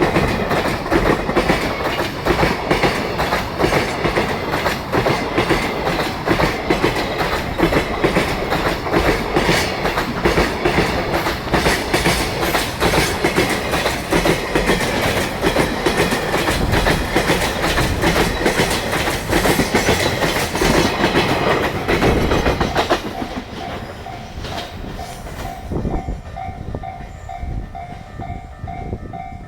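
Koki container wagons of a JR Freight train rolling past at speed, their wheels clattering over the rail joints in a fast, repeating rhythm. About 23 seconds in the last wagon goes by and the clatter drops away, leaving a level-crossing alarm ringing in a steady repeated tone.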